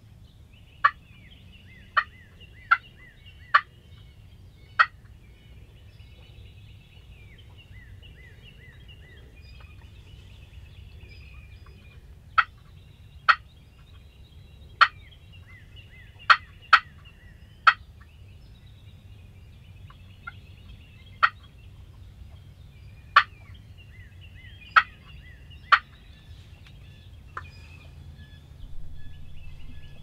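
Wild turkeys calling: about fifteen sharp, single clucks in loose runs a second or so apart, over a faint, continuous chatter of higher-pitched calls.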